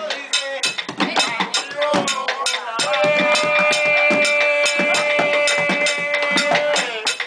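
Live Cuban rumba: a fast drum and wood-block beat, with a singer holding one long note from about three seconds in until near the end.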